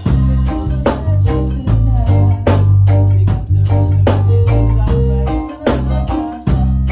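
Live reggae band playing, with a heavy bass line under regular drum kit hits.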